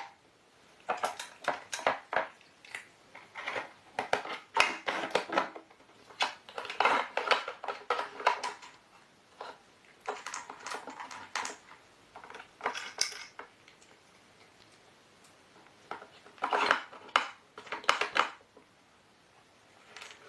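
A cat working a treat puzzle: hard pieces clatter and rattle in bursts of quick clicks and knocks, with quiet pauses between, the longest in the second half.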